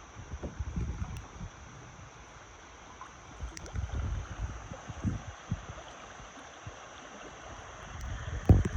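River water flowing and rippling around a kayak on the Meramec River, with irregular low wind buffeting on the microphone and a few louder bumps near the end.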